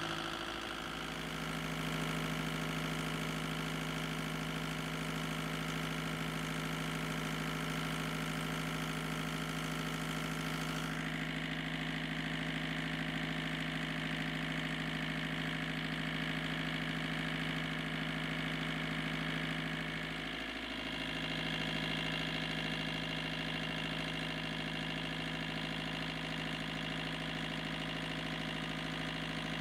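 Kubota V2203 four-cylinder 2.2-litre diesel engine running steadily at a constant speed on its stand. Its pitch and level sag briefly twice, about half a second in and about twenty seconds in.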